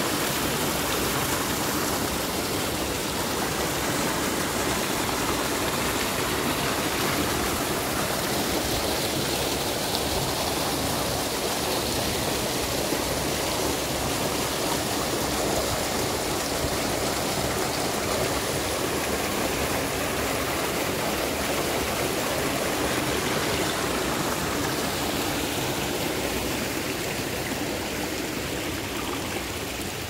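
Rushing water of a waterfall: a steady, even noise of falling and splashing water that eases slightly near the end.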